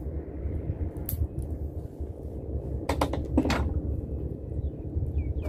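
Knocks and clunks of a gill net and its catch being hauled aboard a small fishing boat: one knock about a second in, then a quick cluster of three near the middle, over a steady low rumble.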